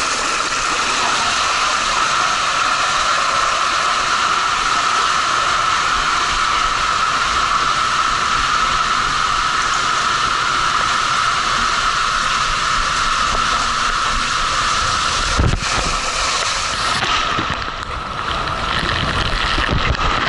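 Water rushing and a rider sliding through an enclosed water-slide tube, a loud steady hiss. There is a thump about fifteen seconds in, then the sound turns to muffled churning and splashing water toward the end.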